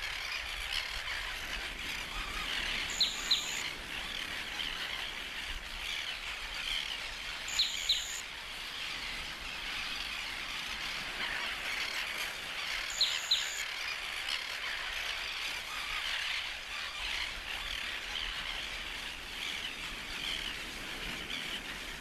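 A crested tern breeding colony calling nonstop, a dense chatter of many overlapping bird calls. Three louder, sharp double calls stand out about 3, 8 and 13 seconds in.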